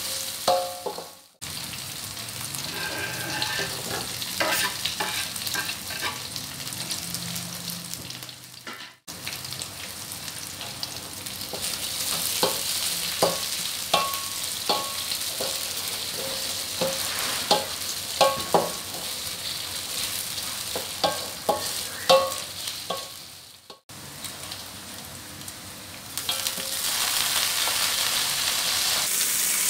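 Chopped chillies, garlic, shallots and sliced beef meatballs sizzling in hot oil in an aluminium wok, with a metal spatula scraping and clicking against the pan as they are stirred. Near the end the sizzle gets louder as water spinach goes into the wok.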